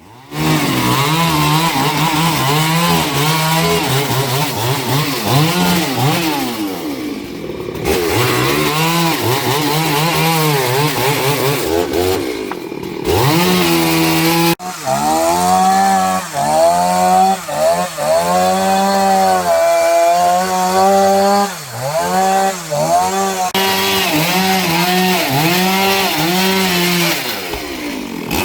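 Chainsaw cutting up a fallen tree, its engine revving up and easing off over and over as it bites into the wood. The sound breaks off abruptly about halfway through and carries on.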